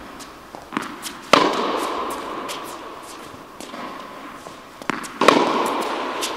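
Tennis rally on an indoor court: twice, about four seconds apart, a lighter knock and then a loud racket strike on the tennis ball, each strike ringing and echoing around the hall.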